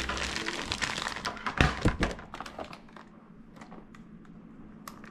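Taps, knocks and light rustling of food containers and packages being handled and set down, with a dull thump about two seconds in. It grows quieter after about three seconds, leaving only a few faint clicks.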